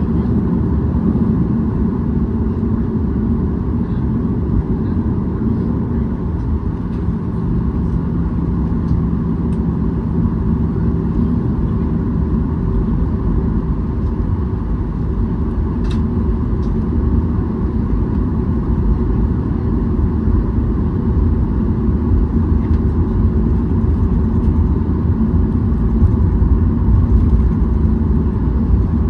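Cabin noise of a Boeing 737-800 taxiing: the steady hum of its CFM56 engines at taxi power over a low rumble, growing a little louder near the end.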